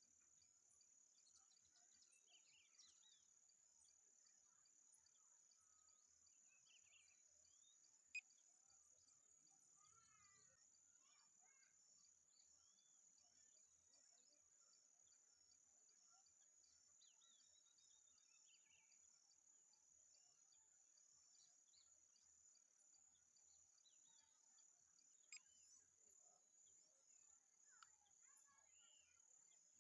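Faint nature ambience: a steady high-pitched insect drone with scattered bird chirps and calls throughout. A sharp click about eight seconds in, and another later.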